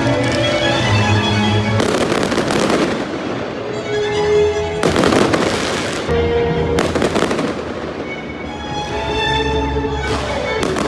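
Fireworks bursting and crackling several times over music with steady sustained notes.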